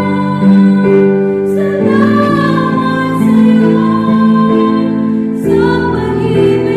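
Music: a slow song with singing, held on long notes over instrumental accompaniment.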